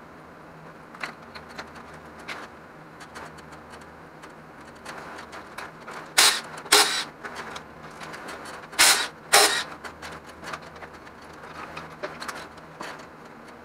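Cordless power tool spinning off the 11 mm connecting rod bolts on a GM LS 5.3 V8: four short bursts, in two pairs about two and a half seconds apart, with light clinks of tools and parts between.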